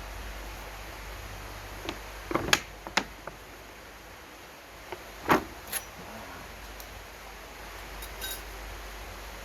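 A handful of sharp clicks and knocks, as of hard objects being handled and set down, over a steady low hum. They cluster about two to three seconds in, with the loudest just after five seconds.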